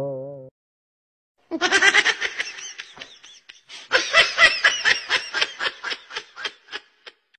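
A laughing sound effect: a voice laughing in two bouts of quick, evenly spaced 'ha-ha' pulses, the second bout trailing off. Before it, a wavering, wobbling tone cuts off about half a second in.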